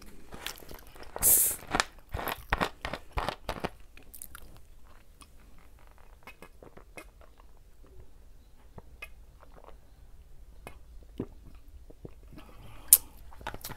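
A plastic bottle of ginger ale twisted open with a short hiss of escaping carbonation about a second in, then several crackling clicks from the plastic and cap. The rest is faint swallowing as it is drunk straight from the bottle, with one sharp click near the end.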